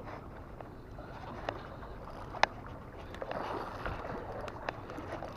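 Waves washing over shallow rocks in a steady rush, with a few sharp clicks, the loudest about halfway through.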